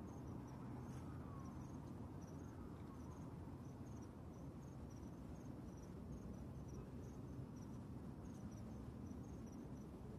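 Crickets chirping in short, high, quickly repeated pulses over a steady low rumble.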